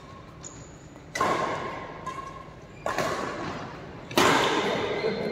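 Three sharp strikes of a badminton racket on the shuttlecock, about a second and a half apart, each followed by a short echo.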